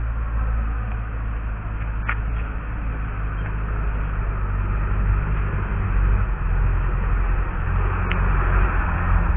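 Steady low rumble of a moving vehicle, with two short sharp ticks, one about two seconds in and one near the end.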